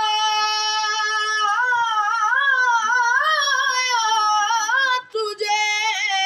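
A teenage boy singing an Urdu naat unaccompanied, drawing a word out into long, high held notes that waver up and down in ornament, with a short breath about five seconds in before the next held note.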